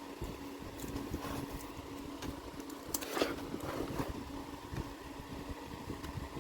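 A few light plastic clicks and scrapes from keyboard keycaps and butterfly clips being worked by hand, the loudest just past halfway, over a steady low hum and rumble.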